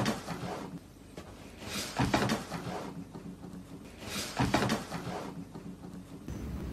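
A cat and a dog scuffling in a face-off: three short noisy bursts about two seconds apart.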